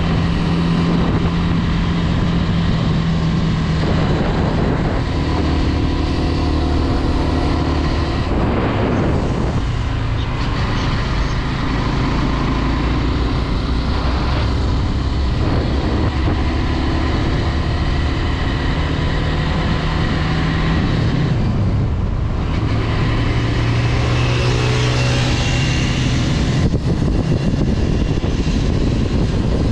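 Honda Twister 250's single-cylinder four-stroke engine running while the motorcycle is under way. Its pitch holds steady for stretches and shifts several times, over a steady rush of wind and road noise.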